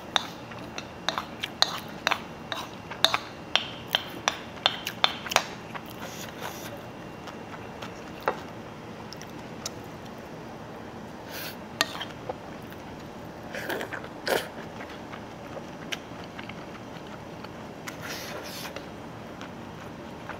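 A spoon clinking and scraping against a bowl while fried rice is eaten: quick taps for the first several seconds, then only now and then. Soft chewing sounds come in between, over a steady background noise.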